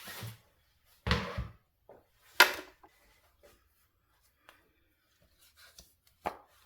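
Paper and cardstock being handled on a craft table: a brief rustle about a second in, then a sharp tap, and a smaller tap near the end.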